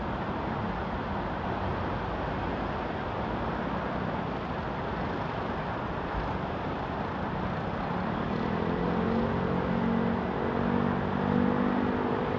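Steady road traffic noise from a busy city street. About two-thirds of the way in, one vehicle's engine hum rises above it and grows louder.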